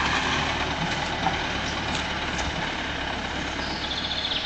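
Pickup truck towing a loaded car trailer pulling away, engine running steadily and fading slowly with distance.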